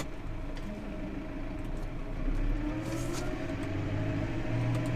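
Tractor engine running steadily, its pitch rising slightly about two seconds in and then holding.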